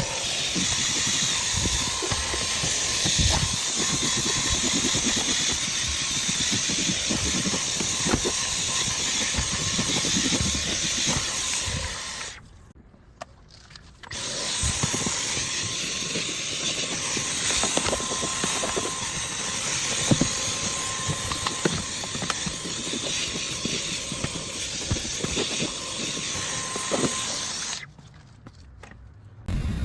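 Kiwi upholstery extraction cleaner (seat-washing machine) running with a steady motor hiss and a faint whine, its nozzle sucking over the car seat fabric with small knocks. The sound cuts off abruptly for about two seconds twice, about 12 seconds in and again near the end.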